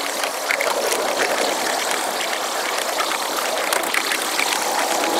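Wulai trolley train running along its narrow-gauge track, recorded at six times speed: a steady rushing hiss dotted with rapid clicks of the wheels on the rails.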